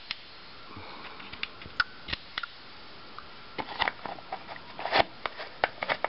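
The dome cover of a ceiling light fixture being handled and fitted back onto the fixture: scattered light clicks and taps, busiest from about three and a half to five seconds in.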